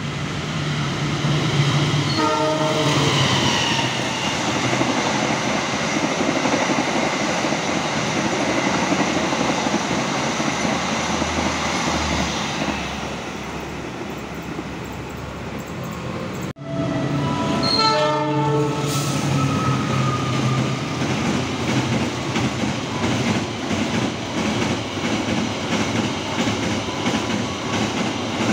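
A locomotive-hauled express train sounds its multi-tone horn about two seconds in and runs through at speed, its noise fading as it goes. After an abrupt cut, a freight train of flatcars sounds its horn and rolls past with steady wheel clacking.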